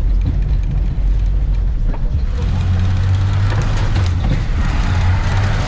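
Lada Niva's four-cylinder engine pulling under load as it tows a caravan over an offroad track. About two seconds in, the engine note rises and the driving noise grows louder as it takes more throttle.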